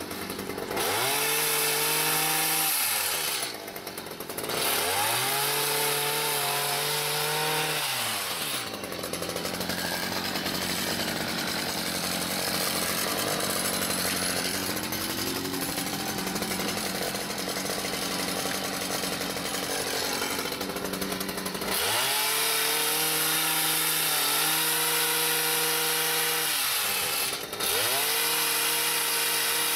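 Two-stroke gas hedge trimmer revving up to high speed in several bursts of a few seconds, dropping back between them, with a rougher, less even stretch in the middle as it trims tall shrub branches.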